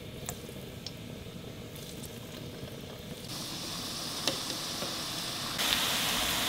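Pangsit (wontons) deep-frying in hot oil in a wok. The sizzling is faint at first and gets louder in two steps, about halfway and again near the end, as more wontons go into the oil. A few light clicks sound along the way.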